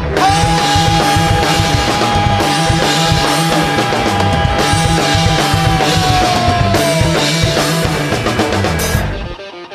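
A rock band plays a loud instrumental intro of drums, bass and distorted guitar, with one long held high note that bends down in pitch near the end. The full band cuts off abruptly about nine seconds in.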